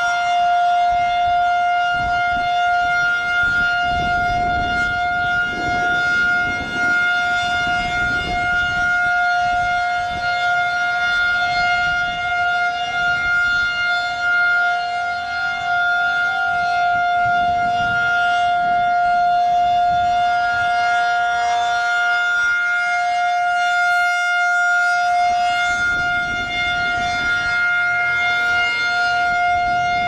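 Federal Signal 2001-SRN rotating electromechanical warning siren sounding its steady 'alert' signal: one loud, unwavering pitch, swelling and fading slightly as the horn turns.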